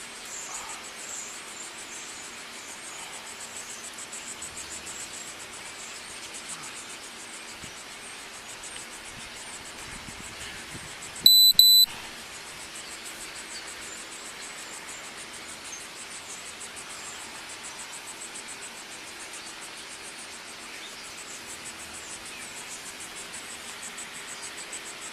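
Steady outdoor ambience of insects chirring, with a faint low hum. About halfway through, two loud, short, high electronic beeps in quick succession.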